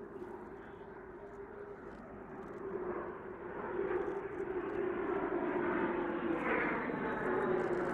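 Jet engines of a formation of three twin-tailed jet fighters flying past: a steady drone with a held mid-pitched tone, growing louder as the jets approach.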